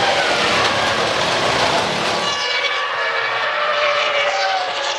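Formula One cars' 3.0-litre V10 engines running at high revs, with several engine notes at different pitches rising and falling at once as the cars accelerate, shift and pass.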